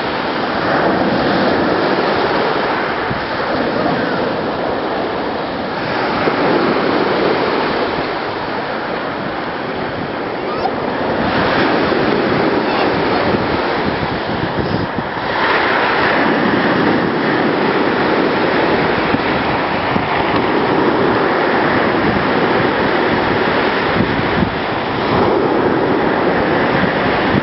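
Sea surf washing ashore, a dense rushing noise that surges louder every few seconds, with wind buffeting the microphone.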